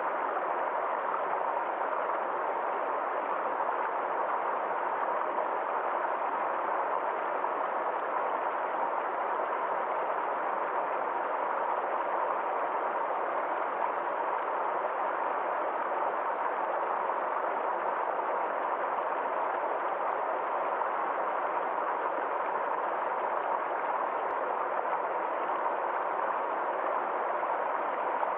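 Forest stream water flowing steadily, a continuous even rushing sound.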